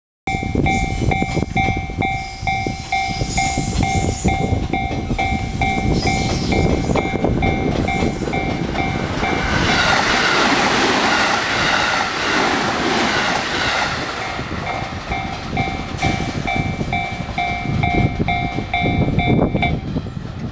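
Japanese level-crossing warning bell dinging in a steady, even rhythm while a train, the JR 485-series Yamanami, passes about halfway through with a loud rushing rumble that drowns the bell for several seconds. The bell stops shortly before the end, once the crossing clears.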